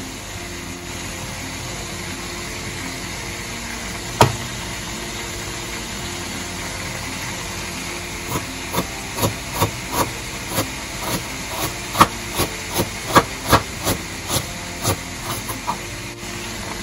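Kitchen knife slicing a red onion on a plastic cutting board: one sharp knock about four seconds in, then from about halfway a run of crisp taps, roughly two to three a second, as each slice meets the board. A steady hiss runs underneath.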